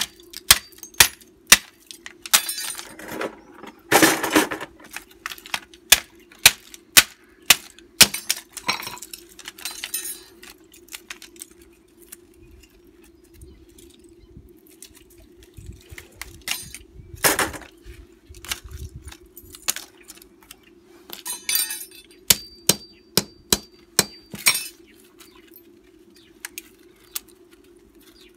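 Hammer blows breaking apart the plastic housings of TV deflection yokes to free their copper windings: irregular sharp cracks and knocks, thick for the first ten seconds, sparse for a while, then bunched again later, with a steady faint hum underneath.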